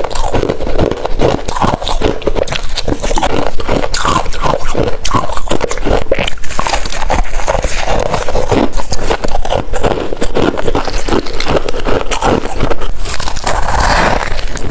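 Close-miked chewing of crunchy freezer frost: a loud, dense stream of crackling crunches as the frost edges are bitten and chewed.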